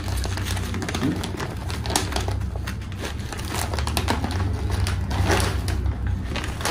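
Stiff sego gele headtie fabric crinkling and rustling with an irregular papery crackle as hands fold, press and tuck it around a head.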